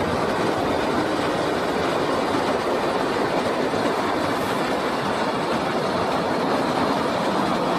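Freight wagons of an intermodal train loaded with swap bodies rolling past at speed, with a steady, unbroken noise of wheels on the rails.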